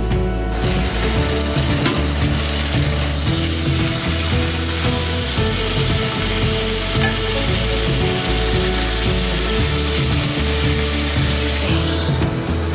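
Pork chops sizzling in hot oil in a grill pan, a steady frying hiss that starts about half a second in and dies away near the end, with background music underneath.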